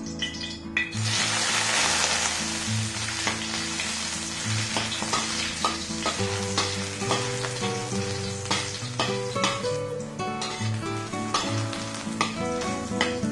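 Soaked shiitake mushroom pieces dropped into hot oil in a stainless steel wok, sizzling suddenly about a second in and then easing off, with a metal wok spatula scraping and tapping the pan as they are stirred.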